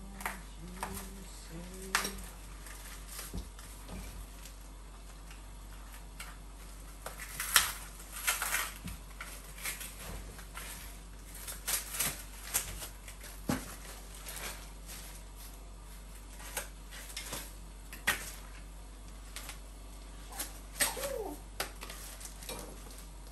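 Irregular clicks, knocks and rattles of a baby jumper's metal tube frame being handled and unwrapped, as cardboard packing is pulled off the tubes.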